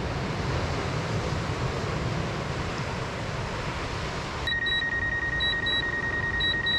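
Surf and wind on the microphone, then, after about four and a half seconds, a DJI Mavic Pro drone remote controller beeping in pairs about once a second over a steady high tone: a flight warning while the drone will not respond.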